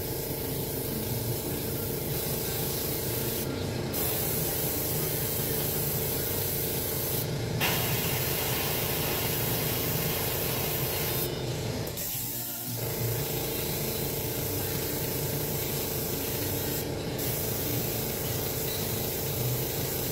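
Airbrush spraying in passes: a steady hiss of air with a few brief stronger bursts, over a steady low hum. The sound dips briefly about twelve seconds in.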